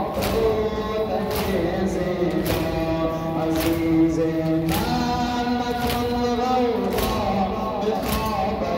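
Group of men chanting a Shia mourning lament in long held notes, with a sharp strike about once a second keeping time: mourners beating in rhythm with the chant.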